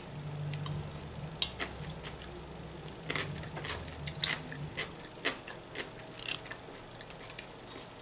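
Quiet chewing of raw vegetable salad (cucumber, tomato) and broccoli, with a scatter of short clicks and crunches as a clear plastic fork taps and scrapes the plate to pick up pieces.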